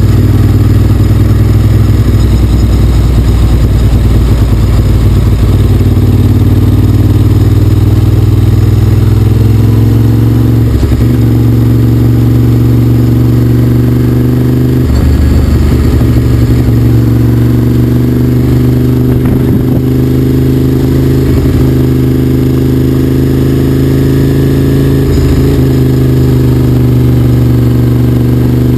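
Motorcycle engine running under way, its pitch climbing steadily and dropping sharply at gear changes about eleven, fifteen and twenty-five seconds in.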